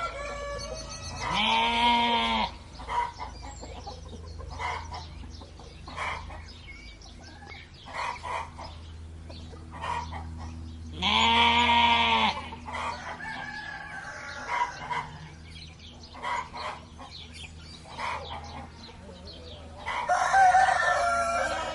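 A rooster crowing twice, about ten seconds apart, with hens clucking in short calls between the crows. Another loud call from the flock comes near the end.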